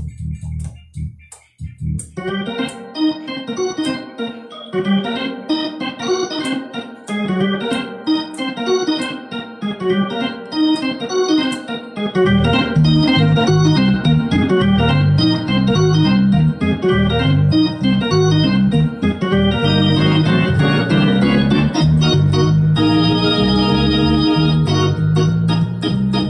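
Two-manual console organ being played, with quick runs of notes and chords over the upper keyboards. Heavy bass notes join about twelve seconds in and make it fuller and louder.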